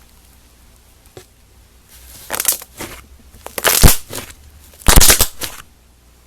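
Slime being squeezed and pressed by hand, in four short noisy bursts; the loudest come about four and five seconds in.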